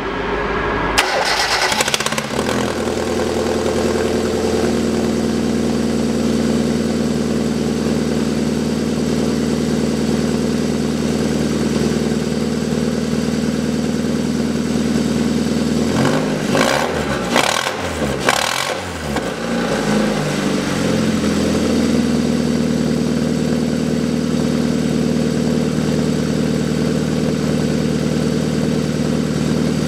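Hyundai Accent's DOHC 16-valve four-cylinder petrol engine starting about a second in and settling to a steady idle. Around the middle a few quick throttle blips rise and fall in pitch before it drops back to idle. The engine is still cold and has logged misfire codes; it is said to run rough and lack power.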